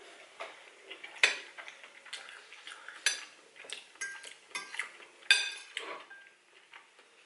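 Metal fork clinking and scraping against a ceramic bowl while taking bites of food: a few sharp clinks with a short ring, the loudest about five seconds in, among quieter taps and scrapes.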